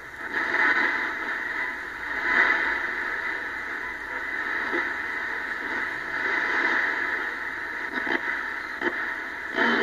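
Cobra 148 GTL radio, fitted with a DDS VFO kit, receiving in AM while being tuned up through the shortwave bands in 10 kHz steps: hiss and static from its speaker, shifting as it passes frequencies, with no clear station.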